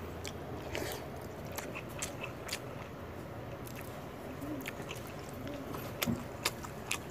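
Quiet sounds of a person eating by hand: scattered soft clicks and crunches as fingers work through a steel bowl of water-soaked rice and fried fish is chewed, with a few louder clicks near the end.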